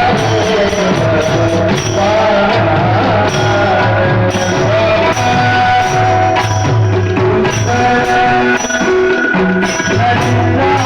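Marathi devotional kirtan singing to a traditional sampradayik tune: a lead voice over small hand cymbals (taal) struck in a steady rhythm and a drum keeping a low beat.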